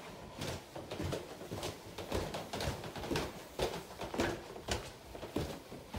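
Footsteps going down a carpeted staircase and on along a hard plank floor, about two steps a second.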